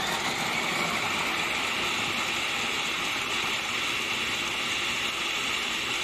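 Philco food processor's motor running steadily, its blade chopping a bowlful of peeled garlic cloves into a fine mince with an even whirr.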